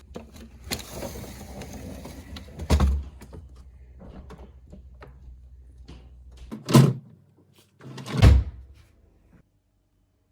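Fridge-freezer doors and drawers being handled: rustling and light knocks, with three loud thuds about three, seven and eight seconds in, then quiet.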